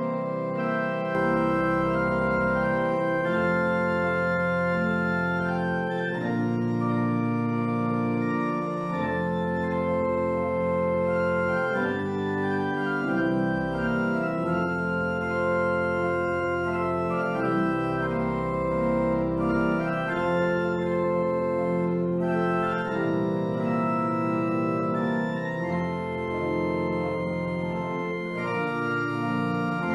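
Pipe organ playing held chords over deep bass notes that change every second or two.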